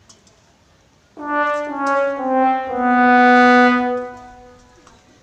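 Sad-trombone comedy sound effect: four falling brass notes, 'wah-wah-wah-wahhh', starting about a second in, the last one held for about two seconds and then fading out.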